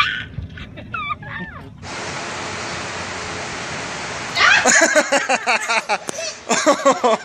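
A baby crying out, a run of loud, high, wavering wails that starts a little past halfway, set off by a cow's nose at her face. Before the cries there is a steady hiss.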